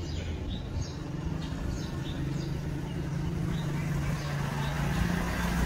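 A passing vehicle's engine hum that grows steadily louder, with small birds chirping over it in the first half.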